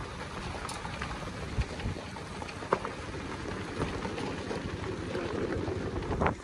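Motorcycle riding over a loose gravel road: a steady rushing noise of wind and tyres on stones, with scattered sharp clicks of gravel. It cuts off suddenly near the end.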